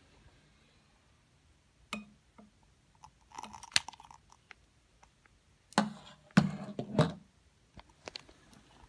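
Scattered clicks and knocks from handling a long-nosed lighter and a glass candle holder. The loudest bumps come in a cluster past the middle.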